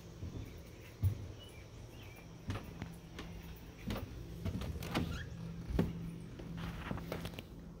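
Footsteps and knocks on a wooden porch, then the clicks and bumps of a front door being unlatched and pushed open, over a steady low hum.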